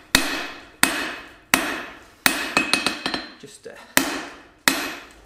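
Large forging hammer striking a red-hot steel bar on an anvil while drawing out a taper: about six heavy blows, roughly 0.7 s apart, each ringing out and fading, with a quick run of lighter taps midway.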